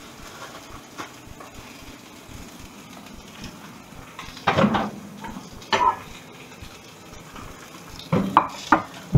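Kitchenware clattering: a glass bowl and a metal spatula knocking in a few sharp bursts, about halfway through, again a second later and near the end. Under them runs the faint, steady sizzle of a mackerel fillet frying in a pan.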